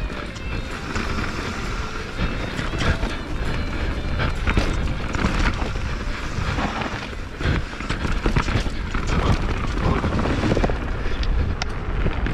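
YT Jeffsy 27.5 enduro mountain bike descending a rough trail: tyres rumbling over the ground, with constant chain and frame rattle and frequent sharp knocks from bumps.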